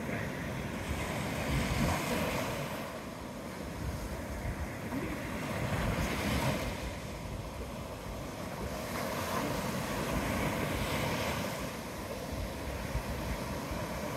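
Gulf of Mexico surf breaking and washing up the beach, swelling and easing about every four seconds, with wind rumbling on the microphone.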